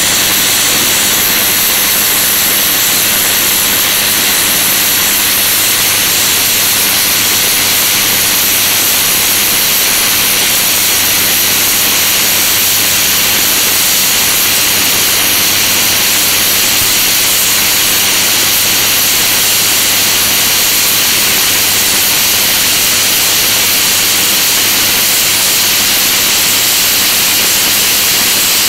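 Flux-core (gasless) welding arc from a Parkside PIFDS 120 A1 inverter welder, a loud, steady hiss as a continuous bead is run on steel.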